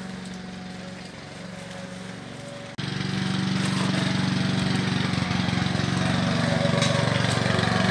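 Petrol lawn mower engine running steadily. About three seconds in, the sound cuts abruptly to a louder, closer stretch of the same running.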